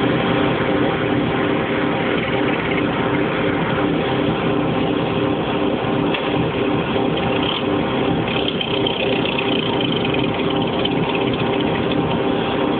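MTZ-550E tractor's diesel engine running steadily under load while hauling a loaded grain trailer.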